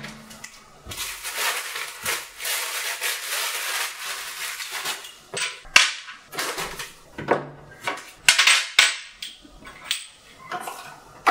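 Rustling of packaging for a few seconds, then a series of sharp clicks and taps as boxed playing-card decks are set down and arranged on a glass tabletop.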